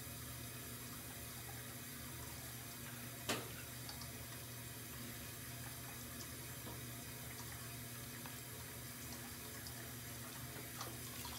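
Bathroom sink faucet left running, a steady rush of water into the basin, with one sharp click about three seconds in.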